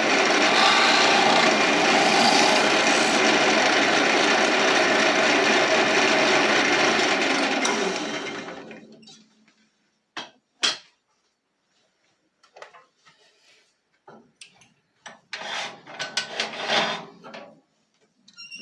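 A carbide hollowing tool cutting inside a mulberry hollow-form vase spinning on a wood lathe: a steady, rough scraping that dies away about eight seconds in. After it, scattered short faint knocks and rubs.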